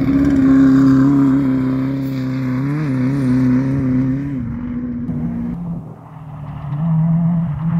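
Off-road race buggy's engine running hard at steady high revs as it passes close on dirt. A second race vehicle's engine follows, fainter, dipping about six seconds in and growing louder again near the end as it approaches.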